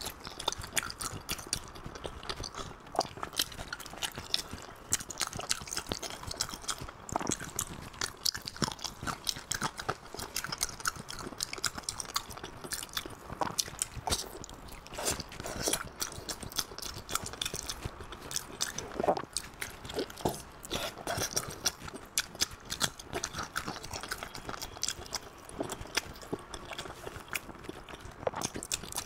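Close-miked chewing and biting of chewy braised pork skin rolls: a steady run of short mouth clicks and smacks.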